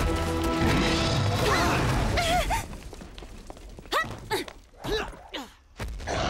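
Cartoon action soundtrack: music and sound effects for about the first two and a half seconds. Then a few short grunts and gasps of effort with thuds, as the animated heroes vault and duck behind a car.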